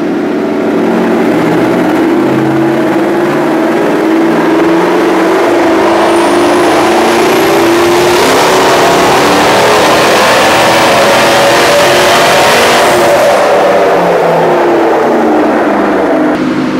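Twin-turbocharged Ford Coyote 5.0 V8 making a full-throttle pull on a chassis dyno: the revs climb steadily for about twelve seconds, with a thin high whistle rising alongside, then the throttle is lifted and the revs fall away.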